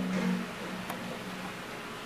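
Handling noise from work on an inkjet printer's main board: a single small click about a second in, over a steady hiss. A low hum fades away over the first second and a half.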